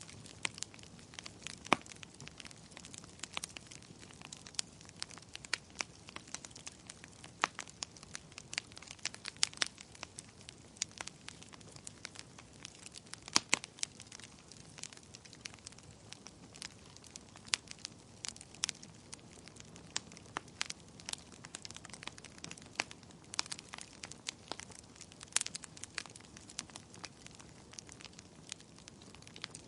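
Wood fire crackling in a fireplace: irregular sharp pops and snaps, a few much louder than the rest, over a soft steady hiss.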